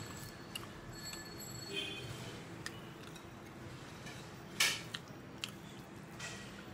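Quiet eating by hand: fingers mixing rice and curry on a ceramic plate and scooping from a small curry bowl, with a few faint clicks and one short, louder scrape a little past halfway.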